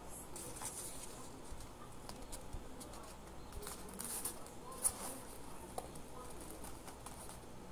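Red micro-corrugated paper and a cardboard base rustling and crinkling as hands press and shape them, with a few light taps and clicks, the sharpest about five seconds in.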